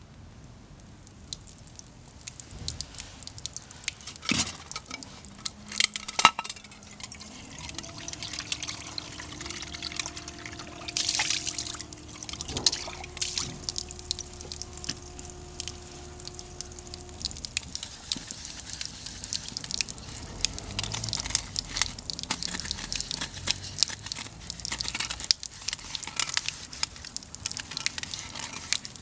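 Liquid being poured and sloshing, with several sharp knocks and clinks, the loudest a few seconds in.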